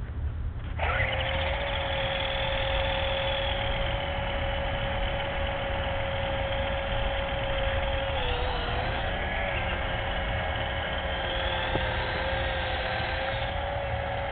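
Black Cat 3-channel electric RC helicopter's motors and rotors spinning up about a second in, then running with a steady whine that dips briefly in pitch around the middle. At full throttle the helicopter still fails to lift off: it is underpowered.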